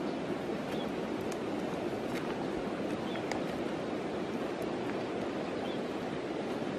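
Steady rushing of flowing river water, with a few faint, sharp ticks.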